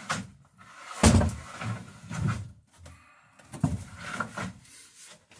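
Irregular wooden knocks and thumps as a long wooden boat plank is handled and lifted. The loudest knock comes about a second in, with more around two seconds and near four seconds.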